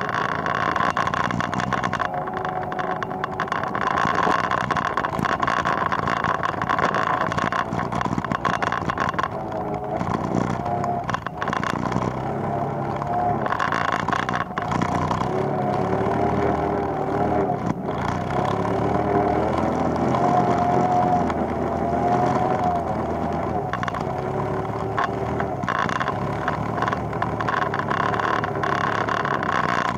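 ATV engine running under way, its pitch rising and falling with the throttle.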